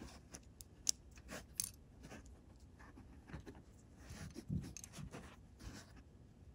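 Faint, scattered clicks and light rustling of small plastic parts handled by fingers: gears being lifted out of a model locomotive's pancake-motor gearbox. The sharpest click comes a little under a second in.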